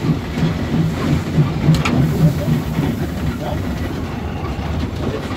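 Steam locomotive running, heard from inside its cab, with a low rhythmic beat of about three a second that is strongest over the first couple of seconds. A sharp metallic click comes about two seconds in.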